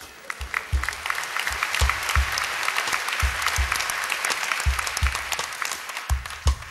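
Theatre audience applauding, a dense clapping that thins out near the end, with low bass-drum thumps from the band underneath.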